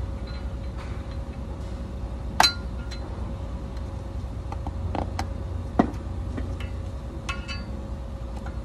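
Metal hand tool clinking and scraping against the centre of a Chevrolet C4500 front wheel hub: a few sharp, ringing metallic clicks, the loudest about two and a half seconds in, over a steady low hum.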